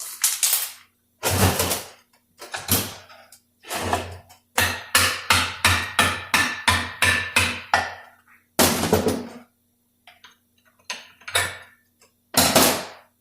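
Ratchet wrench with a 3/8 socket working on transmission bolts: a series of short, sharp metallic ratcheting strokes, coming fast at about three a second in the middle stretch, with a few single strokes before and after.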